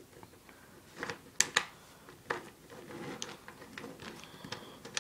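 Wooden blocks of a snake cube puzzle clacking against each other and the wooden tabletop as they are twisted and folded into a cube: a handful of sharp clicks over soft handling noise, the loudest two in quick succession about a second and a half in.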